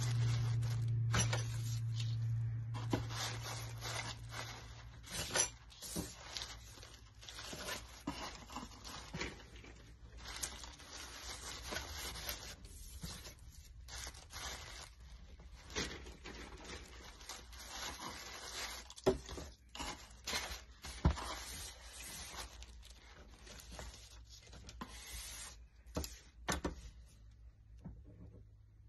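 White tissue paper and crinkle-cut paper shred rustling and crinkling as they are folded and tucked around items in a cardboard box, with frequent small crackles and taps. A low hum runs under it for the first few seconds.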